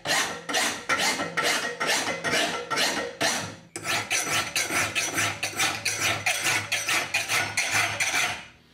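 Hand file rasping back and forth across a forged iron thumb latch, in even strokes about two and a half a second, with a brief pause a little under four seconds in and stopping near the end. The file is taking the dark forged oxide off to leave a bright filed surface.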